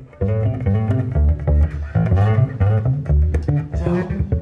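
Background music with a heavy bass line.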